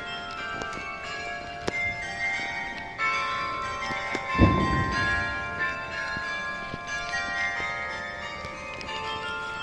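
Church bells ringing, many bells of different pitches struck one after another so their tones overlap and hang on. About halfway through there is a short low thump.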